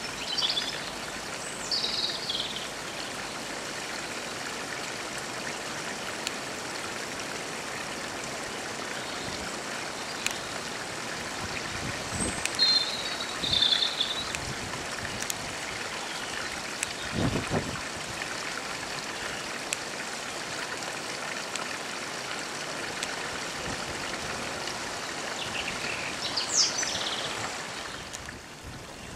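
Arriva Trains Wales Class 175 diesel multiple unit running past on a curve, a steady rushing noise from the train, with a few short high chirps or squeals and one low thud partway through.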